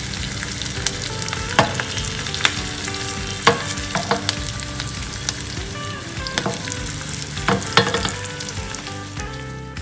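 Ghee sizzling hot in a small steel tempering pan with green chillies, dried red chillies and chilli powder, a steady frying hiss with sharp pops and crackles every second or so: the tadka (baghar) for kadhi cooking on the flame.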